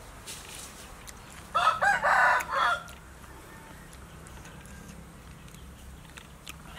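A rooster crowing once: a single cock-a-doodle-doo of about a second and a half, starting about a second and a half in.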